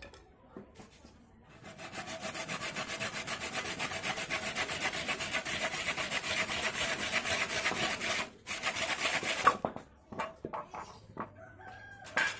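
Hacksaw cutting through a wooden branch in rapid, even back-and-forth strokes, starting about a second and a half in. The sawing stops briefly, finishes with a short last burst, then a few knocks and scrapes as the cut-off piece is handled.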